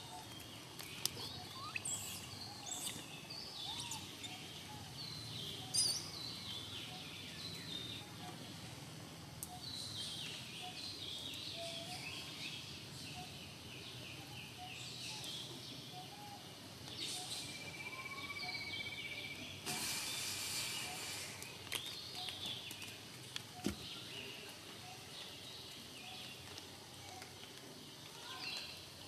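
Outdoor ambience of several birds chirping and trilling, calls overlapping throughout, with a few sharp clicks and a brief rushing hiss about twenty seconds in.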